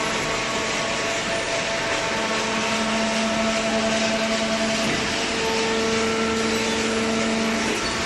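Hydraulic OCC cardboard baler running: a steady loud machine rush with the hum of its motor and hydraulic pump, which strengthens about two seconds in and drops back just before the end.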